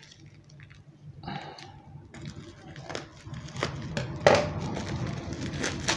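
Bubble wrap and plastic packaging crinkling and rustling as gloved hands unwrap it, with scattered sharp crackles, the loudest about four seconds in.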